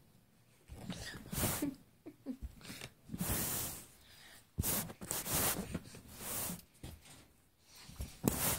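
Short bursts of rustling and handling noise from a phone being moved about, several in a row with quiet gaps between.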